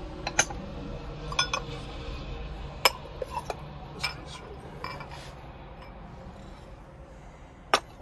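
Ceramic dishes clinking and knocking against each other as they are lifted out of a stack: a string of sharp separate clinks, a pair close together near the end.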